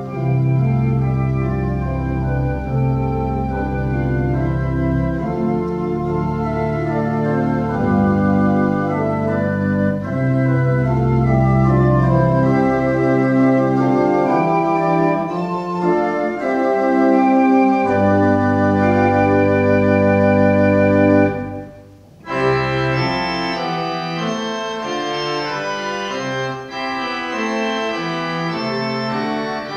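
Organ music: slow, sustained chords over long-held bass notes. It breaks off briefly about three-quarters of the way through and resumes with a brighter sound and less bass.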